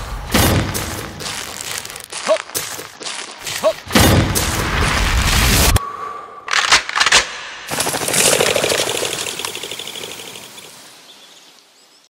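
Several loud, sudden shotgun-like bangs at uneven intervals, including one long loud stretch that cuts off abruptly about halfway through, then the sound fades away toward the end.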